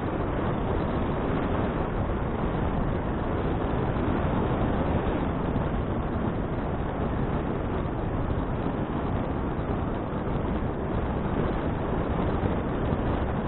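Steady wind and riding noise from a moving bicycle, picked up by an action camera's microphone: an even rush with no distinct events.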